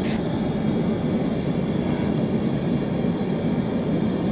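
A giant vat of Coca-Cola hotpot broth at the boil, giving a steady low roar. A small splash comes at the start as a tomato is dropped in.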